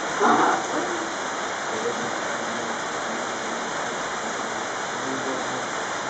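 Steady rain falling, an even hiss that does not let up. A brief voice sounds just after the start.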